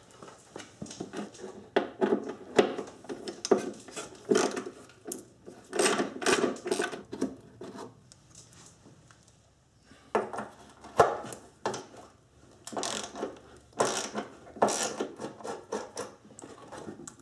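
Irregular clicks, knocks and rubbing of hands and tools working on a plastic windshield washer reservoir, disconnecting its hose and wiring and unbolting it, with a short lull partway through.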